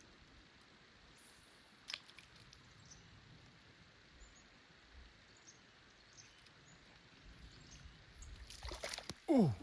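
Faint steady outdoor background by a river with a single sharp click about two seconds in and some rustling near the end, then a person exclaiming a long falling "ooh".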